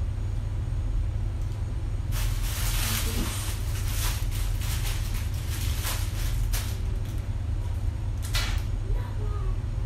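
Clear plastic packaging crinkling and rustling as clothes are handled, from about two seconds in to about seven, with another short crinkle near the end. A steady low hum lies under it throughout.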